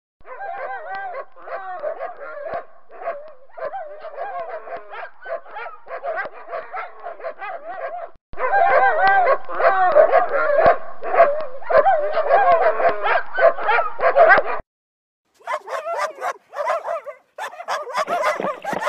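Dog whining and yipping in high, wavering cries broken by quick yips. The cries get louder about eight seconds in, stop for a moment near three-quarters of the way through, then start again as sharper yips.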